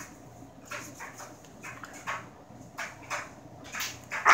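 Dog breathing close to the microphone in short, noisy puffs, about two a second.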